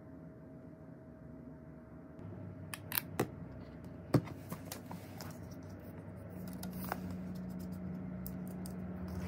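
Hands handling a phone and small packaged items on a wooden desk: a scatter of sharp taps and clicks, the loudest about four seconds in. A low steady hum comes in past the middle.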